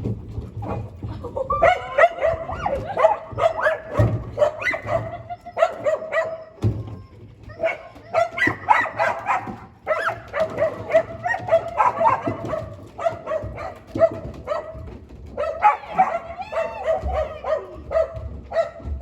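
Dog barking, yipping and whining in runs of short, high calls with brief pauses between them.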